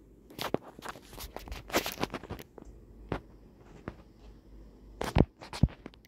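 Irregular rustling, scraping and clicking of the recording phone being handled close to its microphone, in two clusters, the loudest knocks about five seconds in. Underneath, a ceiling fan runs with a faint steady low hum.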